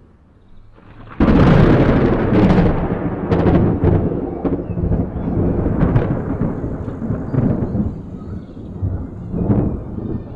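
Thunder from a close lightning strike: a sudden loud crash about a second in, then a long rolling rumble broken by repeated sharp cracks that slowly fades.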